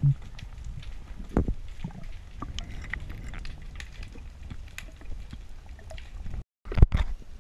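Underwater sound heard through an action camera's waterproof housing: a steady low rumble of ocean surge with many scattered sharp clicks and crackles. Near the end the sound cuts out briefly, then two loud knocks follow.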